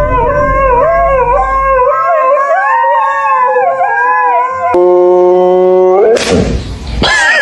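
A dog howling, one long call that wavers up and down in pitch for about four and a half seconds. It cuts abruptly to a steady, flat buzzing tone held for about a second, followed by a short noisy rush near the end.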